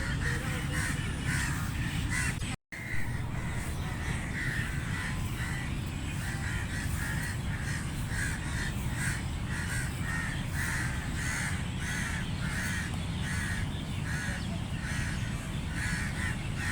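Crows cawing over and over, about two calls a second, over a steady low background rumble, with a brief break in the sound about two and a half seconds in.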